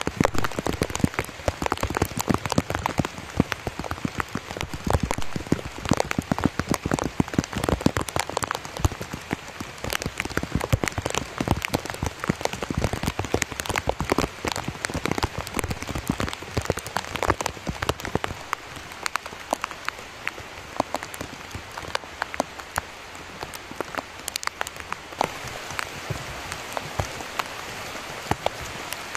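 Heavy tropical rain falling, a dense patter of close raindrop hits over a steady rain hiss. The hits thin out and the rain grows steadier about two-thirds of the way through.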